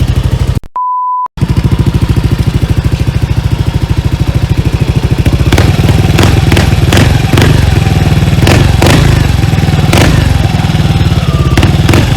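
Yamaha Aerox v2 scooter's 155 cc single-cylinder engine running through an MT8 aftermarket exhaust with a steady, even pulse at idle. About a second in, a short steady beep cuts in over a break in the engine sound; from about five and a half seconds the exhaust is a little louder, with a string of sharp cracks.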